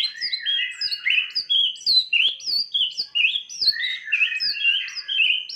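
White-rumped shama (murai batu) singing a fast, unbroken run of short whistled notes and downward slurs. Its voice has recovered after coughing and 'kik' notes.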